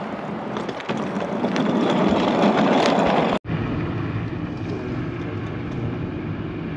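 Snowstorm noise, growing louder for about three seconds, then a sudden cut to the steady hum of a car driving on a snowy road.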